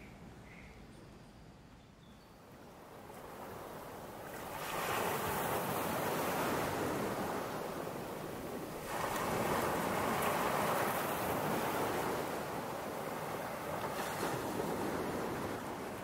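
Quiet room tone at first, then sea surf fades in: waves washing onto a stony beach. They swell about four and a half seconds in, and again around nine and fourteen seconds.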